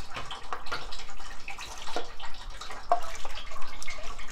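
Water poured from a glass jug through a metal mesh strainer, splashing and trickling unevenly into the container below.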